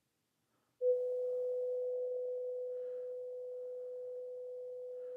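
Steady sine-wave test tone from a signal generator, played through the NAD 3020i amplifier's power-amp stage and small bench speakers. It starts suddenly about a second in. The tone is clean and without hiss, which shows that the power-amp stage is sound, with the hiss fault lying in the preamp.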